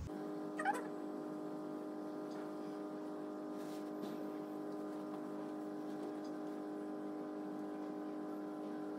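Background music: a steady sustained drone that holds one chord, with a brief rising slide near the start.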